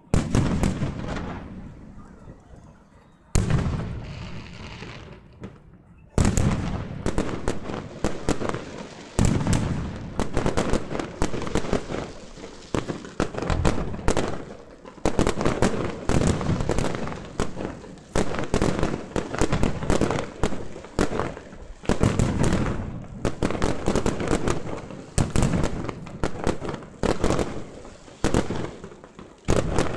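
Fireworks display: single big bursts at the start and again about three and six seconds in, each dying away, then a dense, continuous barrage of bangs and crackle.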